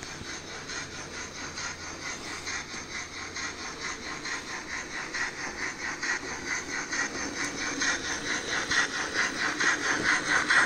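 Sound-fitted OO gauge model steam locomotive chuffing steadily, about four chuffs a second, growing louder toward the end as it runs past.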